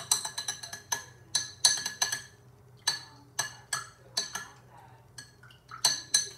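Metal spoon stirring a drink in a drinking glass, clinking against the glass in irregular runs of short ringing clinks with brief pauses between.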